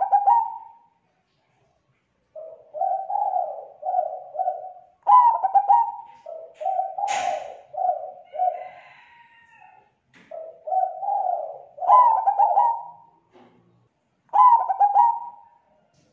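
Zebra dove (perkutut) cooing: phrases of quick rolling coo notes that repeat every few seconds, several of them opening with louder stuttering notes. A short sharp click comes about seven seconds in.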